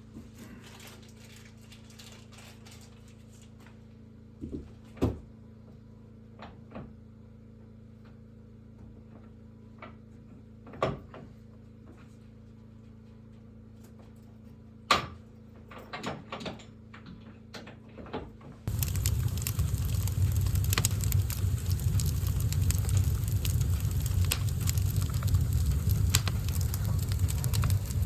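Scattered knocks and clicks over quiet room tone. About two-thirds of the way through, a loud steady rushing noise full of crackles cuts in suddenly.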